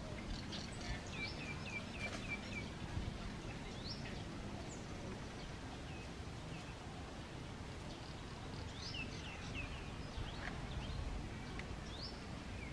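Outdoor background noise with birds chirping in short quick notes: a run of about five chirps near the start and another cluster later on, over a steady low rumble.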